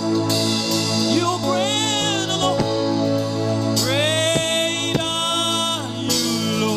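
Gospel praise music: a band playing with sung held notes and a steady beat.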